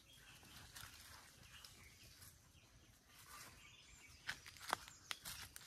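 Near silence with faint bird calls. A few sharp clicks and snaps near the end, from feet and hands on dry leaves, twigs and roots while climbing down a steep bank.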